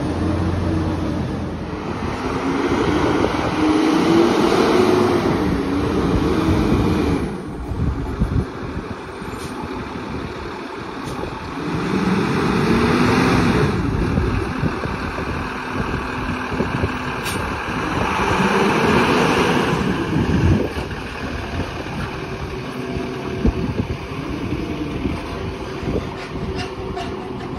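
Lodal EVO split-body garbage truck's engine revving up three times, rising and falling in pitch, with quieter running between. A few knocks and clanks come in the last third.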